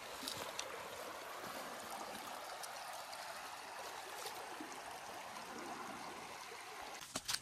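Shallow woodland stream running over gravel and stones: a steady trickling rush of water. A few sharp clicks start just before the end.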